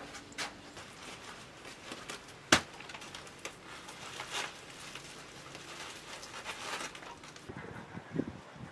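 A sack being handled and tied shut: rustling and crinkling with scattered small clicks, and one sharp knock about two and a half seconds in.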